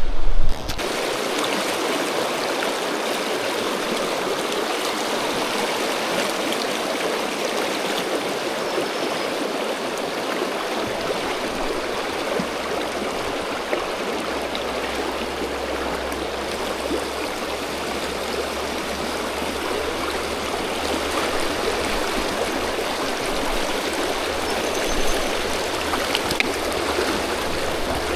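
Fast-flowing river rushing steadily over rocks and shallows, a continuous even rush of water with no let-up.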